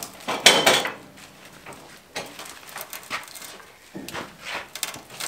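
Knocks and metallic clanks as a big white pine log is levered and turned on a portable band sawmill's steel bed with a hand log-turning tool. The loudest clank comes about half a second in, and lighter knocks follow every second or so.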